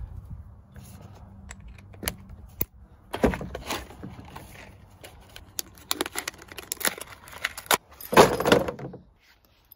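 Screws rattling in clear plastic boxes as they are handled, with scattered clicks and knocks and a louder rattling clatter near the end.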